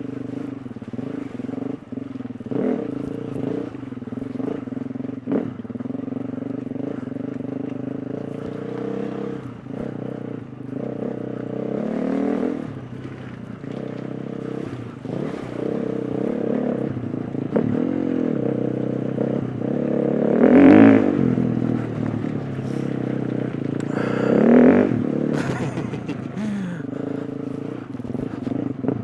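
2020 KTM 350 EXC-F's single-cylinder four-stroke engine pulling at low revs with throttle blips, rising to two louder revs about two-thirds of the way through and again a few seconds later, with a few short knocks along the way.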